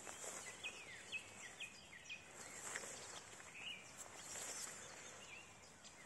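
Footsteps and grass stalks swishing against the camera during a slow walk through tall meadow grass, with a small songbird giving a run of five short repeated notes, about two a second, starting about half a second in, and two more single notes later.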